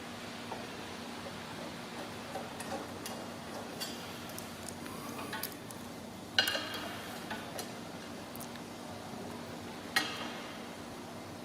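Small metallic clicks and taps of bolts, washers and spanners being handled as bolts are aligned and fitted. There are two sharper metal clanks, one about six seconds in and one about ten seconds in, each with a short ring.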